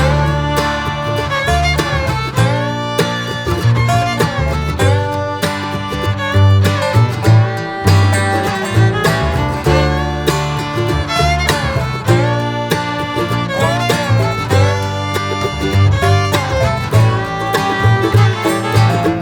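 Bluegrass-style music with guitar and fiddle.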